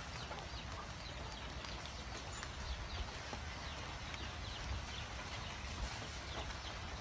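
Faint birds chirping, short falling notes repeated many times, over a low rumble of wind on the microphone.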